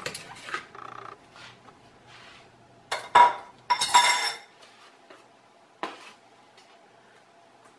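Dishes and cutlery clinking: a fork and ceramic plate knocking together in a few sharp clicks, with a louder cluster of ringing clinks about three to four seconds in and one more click near the end.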